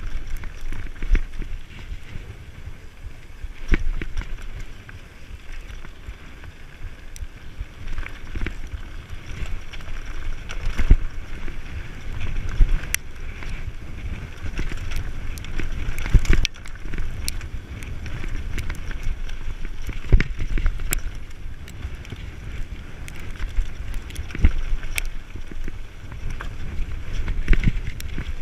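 Mountain bike riding fast over a rough, stony gravel track: continuous tyre rumble and crunch with frequent sharp knocks and rattles as the bike hits stones, plus wind buffeting on the microphone.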